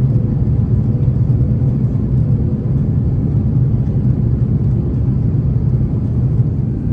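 Steady low cabin rumble inside an Airbus A330-900neo airliner in descent: the drone of its Rolls-Royce Trent 7000 engines and the airflow over the fuselage, with a faint steady tone.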